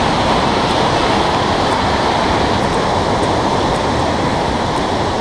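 Glacier-fed mountain river rushing over boulders in white-water cascades: a loud, steady rush of water.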